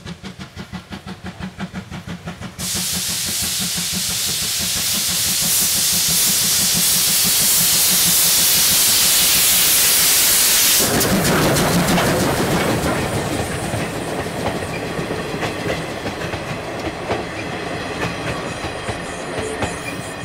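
C12-class steam tank locomotive (C12 66) passing with its coaches: rhythmic exhaust beats at first, then a sudden loud, steady hiss of steam for about eight seconds. The hiss cuts off as the engine passes close, and the coaches follow with the clickety-clack of wheels over rail joints.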